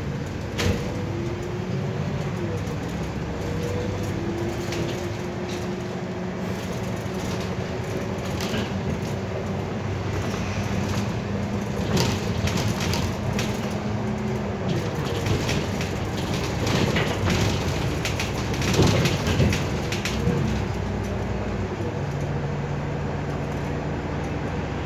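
Solaris Urbino 12 city bus driving, heard from inside at the front: the drivetrain hums and whines, its pitch shifting as the bus changes speed. Loose rattles and knocks from the body come in over the road, thickest around the middle.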